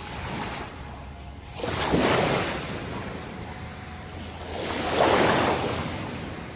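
Small river waves washing in at the water's edge: two surges of rushing water about three seconds apart, the first about two seconds in and the second near the end.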